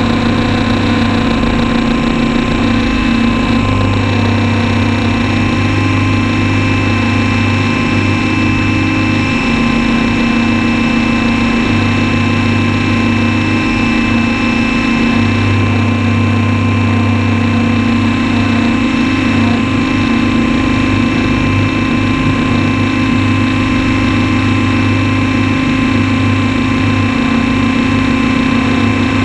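Steady, unbroken drone of a radio-controlled helicopter's motor and rotor heard from a camera mounted on the aircraft in flight, holding one pitch.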